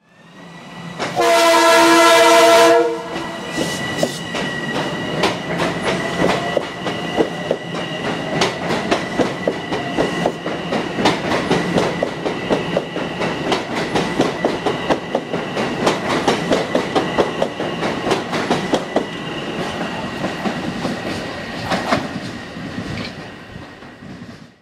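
Metro-North M7A electric train sounding its K5LA horn: one loud blast of about two seconds, made of two blasts run together so they sound as one. The train then rolls by, its wheels clicking over the rail joints, with a steady high whine and an electric motor whine that rises in pitch.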